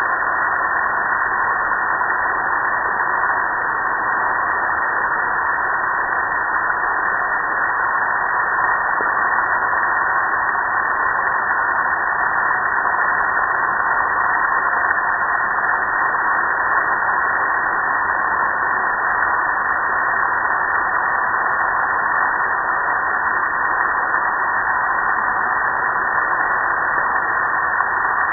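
Steady rushing hiss of a water spray hitting a gas grill, with soapy water streaming down its lid and control panel.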